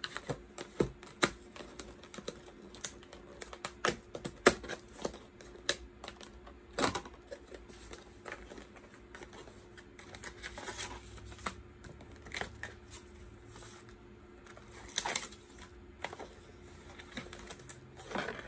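Cardboard camera box being handled and opened by hand: irregular sharp clicks and taps of the box and its flaps, busiest in the first few seconds, with short bursts of rustling from the packaging later on.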